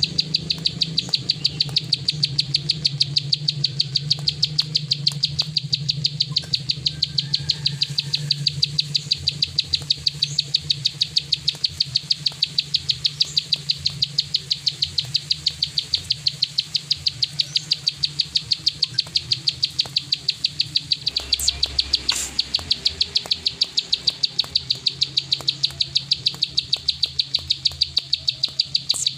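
Plain prinia (prenjak sawah) giving its clicking 'klik' call: a steady, even train of dry, high clicks, about four a second, kept up without a break.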